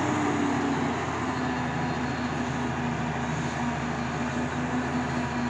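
JCB tracked excavator's diesel engine running steadily under load with a steady pitched hydraulic whine as the bucket works into a pile of soil; the tone drops slightly about a second in.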